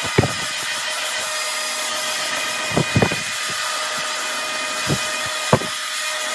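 Handheld hair dryer running steadily with a whining motor and rushing air, drying a gel and freeze-spray mixture on a wig's lace. A few short knocks or clicks are heard, near the start, twice about three seconds in, and twice towards the end.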